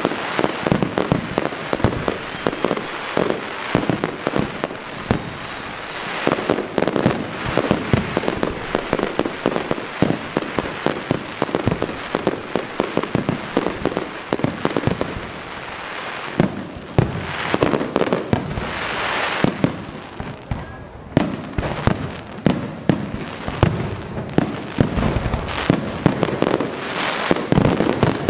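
Fireworks display: a dense, continuous barrage of bangs and crackling shell bursts. The firing thins briefly about twenty seconds in, then picks up again with heavier booms.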